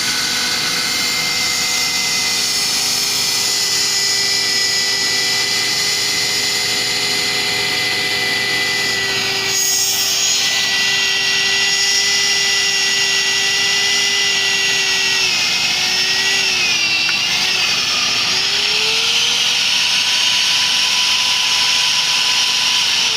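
BDS MABasic 200 magnetic drilling machine's motor running with a steady whine. A brief click comes about ten seconds in, and the whine's pitch sags and wavers for a few seconds about two-thirds of the way through.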